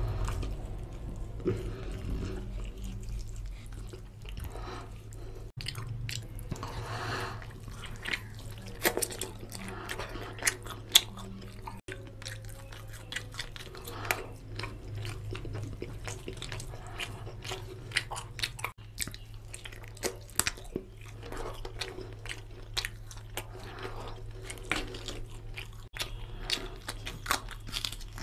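Close-miked chewing and wet mouth smacking of a person eating chicken curry and rice by hand, with sticky squelches as fingers mix rice into the oily curry sauce and occasional sharp louder smacks. A steady low hum runs underneath.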